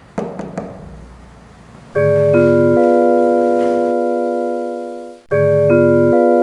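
Three quick knocks on a door, then a held electronic keyboard chord that starts about two seconds in, with notes stacked on one after another. It slowly fades, breaks off and is struck again the same way about five seconds in.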